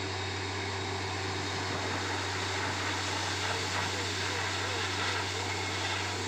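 Truck-mounted borewell drilling rig running steadily: a constant low engine and compressor hum under an even rushing hiss as compressed air blows rock cuttings and dust up out of the bore.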